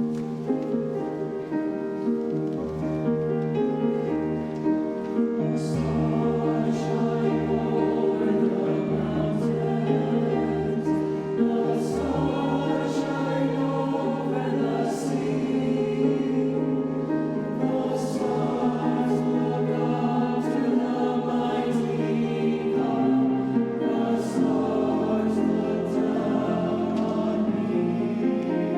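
Youth choir singing a slow piece in sustained harmony, with separate low bass notes underneath.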